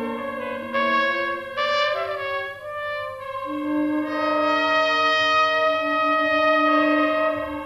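Trumpet playing among other wind instruments in a live jazz ensemble: shifting short notes for the first few seconds, then long held notes sounding together from about three and a half seconds in.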